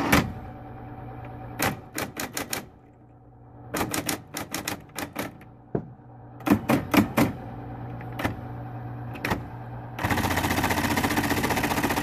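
Smith-Corona Coronet Super 12 electric typewriter with its motor humming steadily while keys are struck with no paper in, in irregular clusters of sharp clacks. In the last two seconds a fast, even run of repeating strokes comes from the held space bar. The machine is running and typing, a sign that it works.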